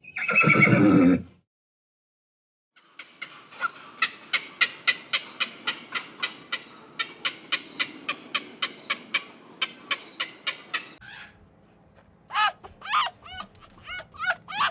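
A horse neighs loudly once, for about a second. A few seconds later a fast, even run of sharp clicks, about four a second, goes on for around eight seconds. Near the end come short, quick chirping calls.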